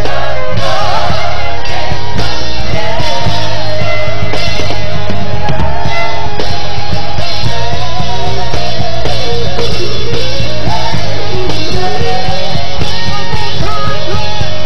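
Live gospel band playing an instrumental passage: drum kit, bass and electric guitar, with a lead melody line sliding up and down above them.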